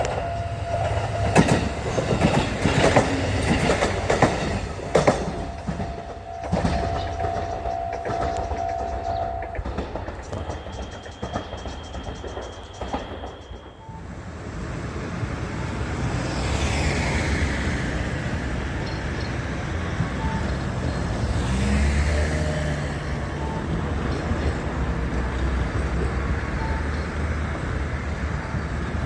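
Diesel train passing over a level crossing, its wheels clattering over the rail joints. From about halfway through, a steadier low rumble of passing street vehicles.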